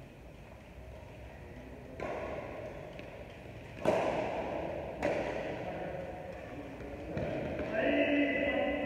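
Badminton rackets striking a shuttlecock during a rally: a series of sharp hits about a second apart, each ringing on in the echo of the large hall, the loudest about midway.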